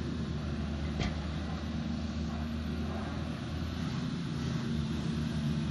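Diesel engine of a Volvo long-reach tracked excavator running steadily under load as the machine swings and raises its arm, with a single sharp click about a second in. The engine note rises slightly in the second half.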